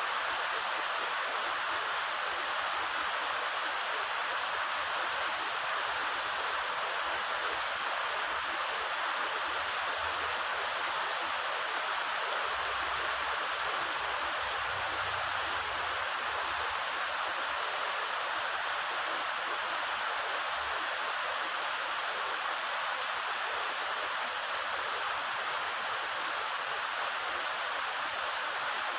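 Heavy rain falling in a steady, even hiss, with a faint low rumble about midway.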